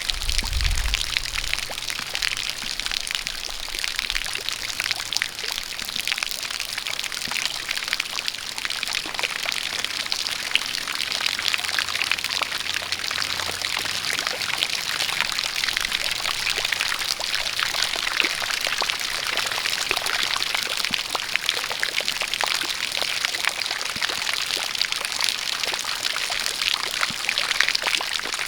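Steady rain falling, with a spout of water pouring, a dense even patter of drops. A low rumble sits under it in the first few seconds.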